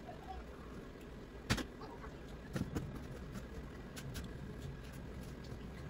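Low steady room hum with a few light, sharp clicks and taps from handling a plastic mascara tube and wand: one about a second and a half in, a little cluster near the three-second mark, and fainter ticks later.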